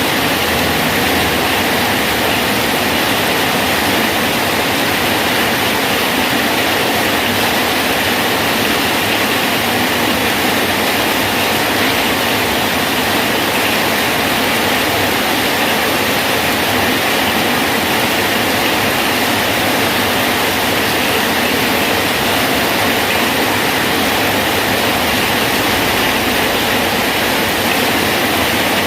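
Steady rain falling on a bridge, an even, unbroken hiss.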